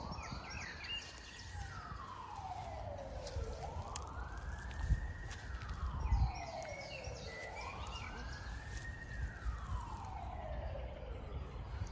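A wailing siren, its pitch rising and falling slowly in long sweeps, about three full cycles.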